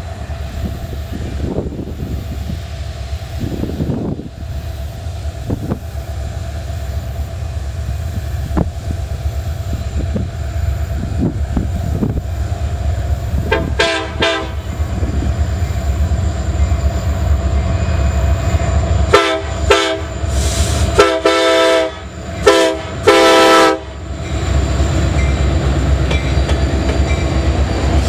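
Ferromex SD70ACe diesel locomotive's Nathan K5LLA horn: a brief blast about fourteen seconds in, then a run of short and long blasts between about 19 and 24 seconds, the two long ones near the end loudest. A steady low rumble of the approaching freight train runs underneath and grows as the locomotives draw close.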